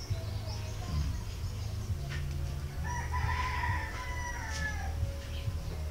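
A rooster crowing once, a single call of about two seconds starting about three seconds in and falling away at the end, over a steady low hum.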